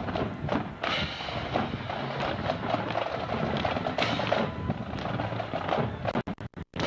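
Marching band playing on parade, with drum beats standing out through the music. The sound cuts out in several short gaps near the end.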